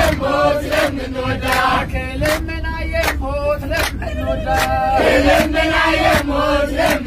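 Eritrean Orthodox Tewahdo hymn (mezmur) sung in chorus, with sharp claps keeping the beat about twice a second, over the low rumble of a moving bus.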